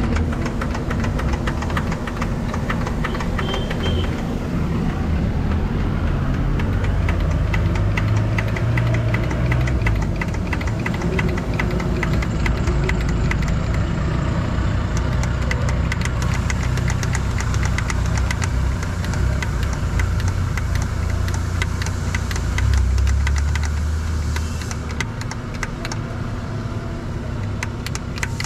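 Diesel engine of a Shaktiman (MAN 415) military truck running steadily with a rapid, even knock, its low drone shifting pitch briefly a couple of times. It has just been cold-started after standing unused for years.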